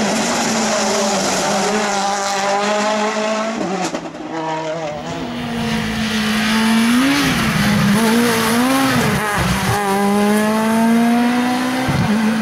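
Rally car engines at full stage pace: a Citroën DS3 WRC's four-cylinder pulling hard for the first few seconds, then a Ford Fiesta rally car lifting and blipping the throttle through a bend and accelerating away, its engine note rising through a gear.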